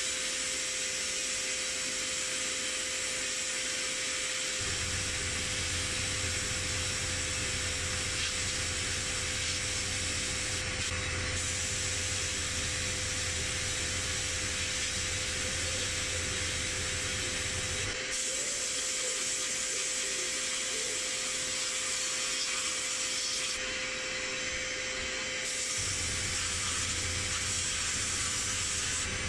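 Sandblast gun in a media blasting cabinet hissing steadily as it strips paint from a metal part, with brief breaks in the hiss. A low hum starts a few seconds in, stops a little past the middle and comes back near the end.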